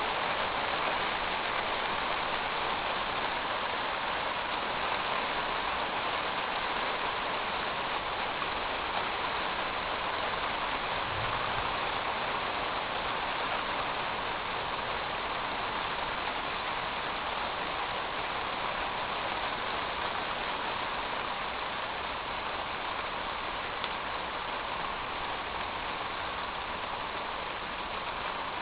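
Rain falling steadily on a metal roof, an even hiss that stays constant throughout and eases slightly toward the end.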